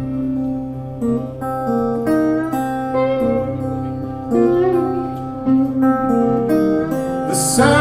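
Live band playing an instrumental passage led by guitar, with a melody of held notes, some sliding in pitch, over a steady low bass. The band comes in louder and brighter near the end.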